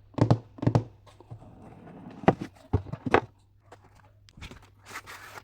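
A tablet box being handled while it is unpacked: a series of sharp knocks and taps, some in quick pairs, then a short rustling slide near the end.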